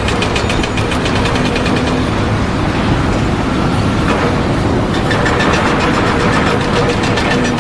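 Loud, steady machinery noise with a fast, even rattle running through it.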